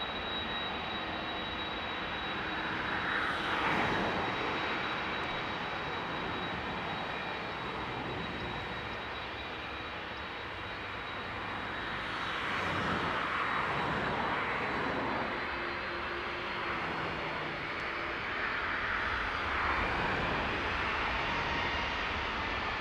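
Boeing 767 jet engines running at low thrust while the airliner taxis: a steady rush with a thin high whine, swelling and shifting in tone a few times as the aircraft moves.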